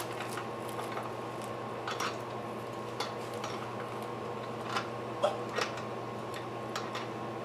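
Scattered light clicks and taps of small hardware being handled while a swing is assembled, over a steady low room hum.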